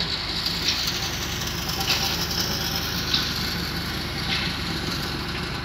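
Three-roll plate bending machine running as it rolls a mild steel plate: a steady drone of motor and gearing, with a short high-pitched sound from the rollers and plate coming back about once a second.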